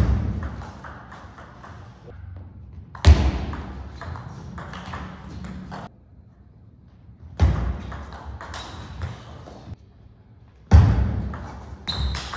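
Table tennis rallies: the celluloid ball clicking off the rackets and the table in quick exchanges. Four short rallies each open with a heavy thud and break off abruptly.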